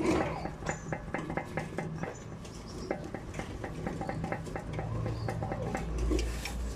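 Rapid light metallic clicking, about five clicks a second, from a Perodua Alza's driveshaft CV joint, with a low hum joining near the end. The clicking is the sign of a worn CV joint.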